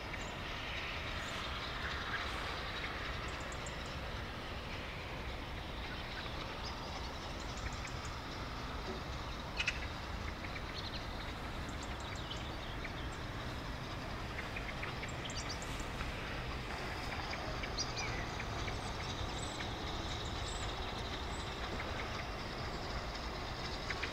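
BR Standard Class 9F 2-10-0 steam locomotive 92214 moving slowly towards the listener: a steady low rumble with a few short knocks.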